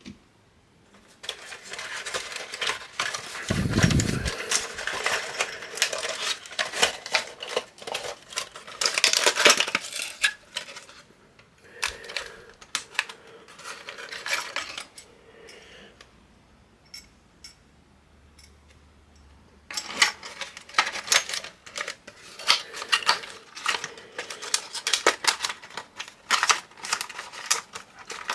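Hard plastic and metal computer parts clicking, clinking and rattling as they are handled and fitted during a PC assembly, in bursts with a lull of a few seconds after the middle.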